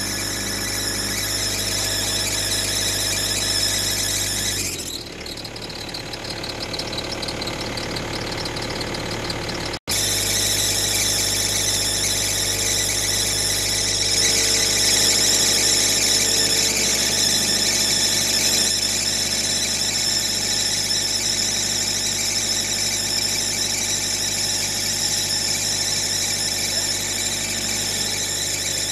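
JCB 3DX Plus backhoe loader's diesel engine running under work with a steady high-pitched whine over it. The sound drops out briefly about ten seconds in, then carries on.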